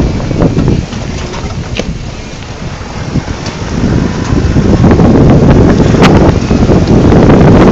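Wind buffeting the camera microphone with a loud low rumble, easing for a few seconds about a second in, then rising again.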